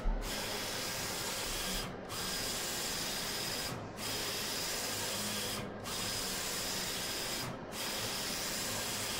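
Wide-format printer printing decals: a steady whir of the print run, broken by a short dip about every two seconds between passes of the print head.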